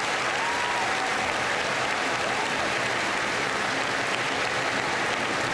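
Large audience applauding steadily, with a faint shout or two mixed in.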